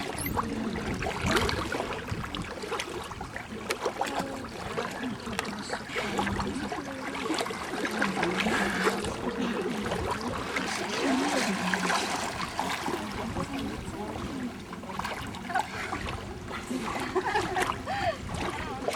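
Shallow seawater splashing and lapping, with a murmur of voices underneath.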